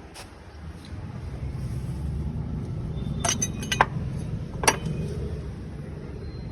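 Several sharp metallic clinks with a short ring, a cluster about three seconds in and one more near five seconds, over a steady low rumble.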